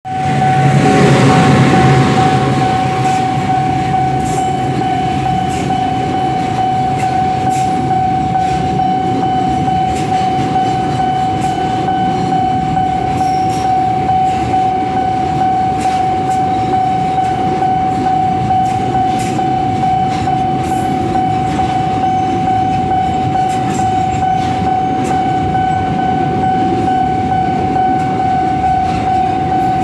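Container freight train rolling past at close range, led in the first two seconds by the loud diesel locomotive, then a steady rumble of wagons with scattered wheel clicks. Over it runs an unbroken high tone of fixed pitch from the level-crossing warning alarm.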